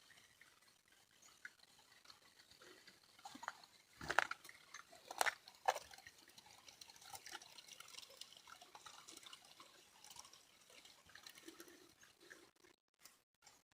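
Faint, irregular water dripping, with a few louder drips about four to six seconds in. The sound cuts out in short gaps near the end.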